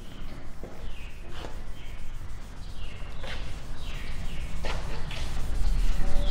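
A chalkboard duster wiping chalk off a chalkboard in repeated scraping strokes, about one a second.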